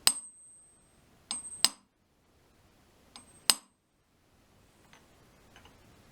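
Sharp metal-on-metal taps on an adjustable lathe center, each tap nudging it over to take out the last of its runout. There are three loud taps, each with a lighter one just before it, and the first ones leave a short high ring.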